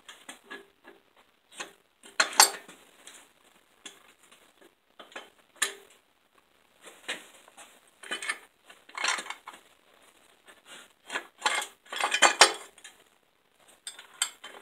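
Metal parts clinking and clanking in irregular bursts as hose clamps and the accessory bracket are handled and fitted at the front of a Dodge 318/360 V8 engine, with a couple of louder clanks.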